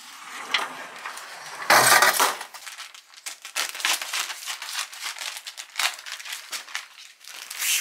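Objects being handled and unpacked: a loud scuffing burst about two seconds in, then a run of light clicks and rustles.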